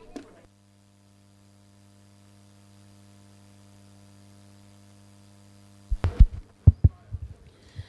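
A faint, steady electrical hum, then about six seconds in a quick run of knocks and thuds as a white plastic chair is carried onto the stage and set down.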